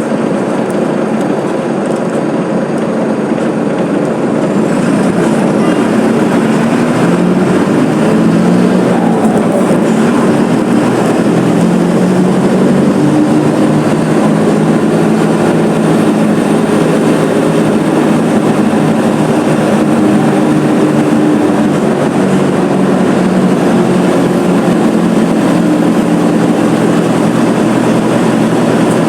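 Diesel engine of a Mercedes-Benz OF 1721 BlueTec 5 city bus running under way. Its pitch rises and falls repeatedly as it pulls through the gears, growing a little louder about four seconds in.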